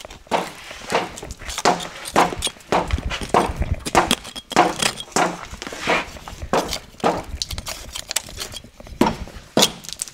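Hammers, screwdrivers and putty knives knocking and chipping caked mud off a planter's metal row units: an irregular run of sharp knocks and clinks, two or three a second.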